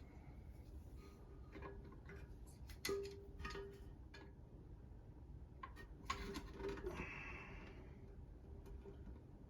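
Faint clicks and taps of a universal toilet tank lever and its parts being handled and fitted against the tank. A sharper click about three seconds in rings briefly, and another group of clicks and a short rubbing sound come a few seconds later.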